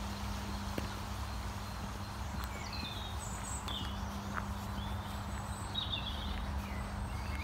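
Footsteps walking on a gravel path, with short bird chirps here and there over a steady low rumble.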